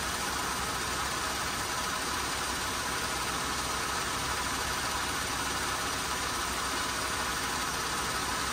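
2018 Jeep Grand Cherokee's 3.6-litre V6 idling steadily, kept running so the 8-speed ZF transmission's fluid warms to temperature for a level check at the fill plug.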